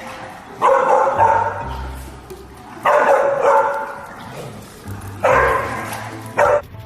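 A dog barking loudly: three drawn-out barks about two seconds apart, then a short one near the end.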